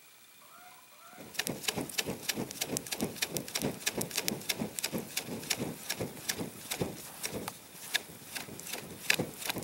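Small campfire of damp deadwood crackling and popping rapidly as it is fanned with a paper plate. The crackling starts about a second in.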